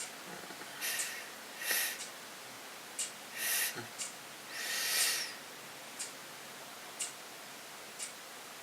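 Steady ticking about once a second, like a clock, with four short hissing whooshes among the ticks in the first half.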